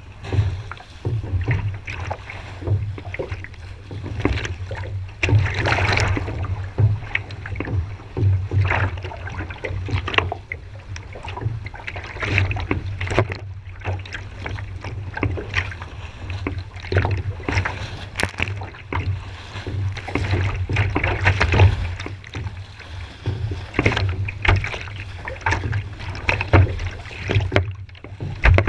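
Strong wind buffeting a GoPro's microphone in a gusting low rumble, with water splashing against a sea kayak in choppy conditions.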